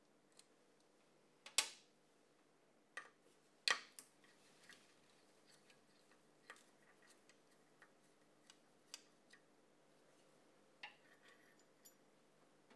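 Faint, scattered metallic clicks and ticks of a hex key working the M4 Allen screws that hold the ignition and ionization electrode on a gas condensing boiler's burner. The two loudest clicks come about one and a half and nearly four seconds in, with lighter ticks after them.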